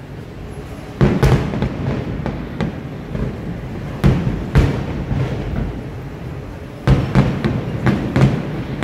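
Aerial fireworks shells bursting: sharp bangs in clusters, two about a second in, two around four to four and a half seconds, and several in quick succession from about seven seconds on.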